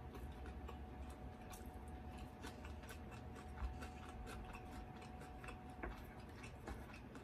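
Faint, unevenly spaced soft clicks of a mouth chewing sushi, with a faint steady high hum that stops about six seconds in.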